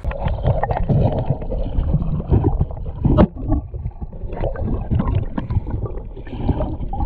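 Muffled underwater sound picked up by a submerged camera: water gurgling and sloshing around it, with frequent knocks and clicks, the sharpest about three seconds in.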